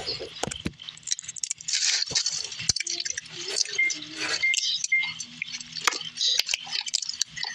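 Quick small clicks and clinks with rustling as fingers handle a small object close to the microphone, with three short high beeps around the middle.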